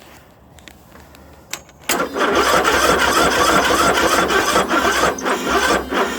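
Single-cylinder 500cc Briggs & Stratton engine of a John Deere 102 lawn tractor being cranked on its electric starter, starting about two seconds in, turning over with a loud rattling and rumbling. The noise is the sign of a failed counterbalancer, and the battery is getting weak.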